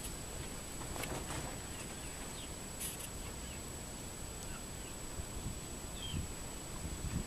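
Quiet outdoor background hiss with a few faint, short bird chirps and a steady high-pitched whine. A few soft bumps come near the end.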